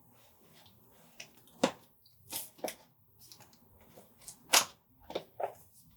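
Packaging being cut and pried open with a knife: a series of sharp plastic cracks and clicks, the loudest about four and a half seconds in.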